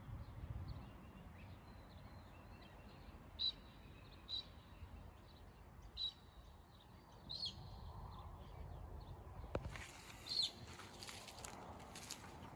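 Birds chirping now and then, a handful of short high calls, over a low outdoor rumble. From about ten seconds in, footsteps crunching on dry bark and leaf litter.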